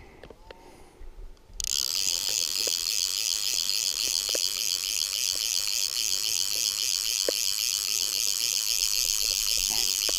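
Fly reel's ratchet buzzing steadily as line runs through it, starting suddenly about a second and a half in.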